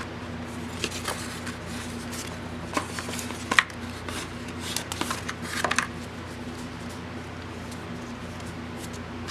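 Magic: The Gathering cards being handled and sorted by hand: scattered light clicks and slides of card stock over a steady low hum.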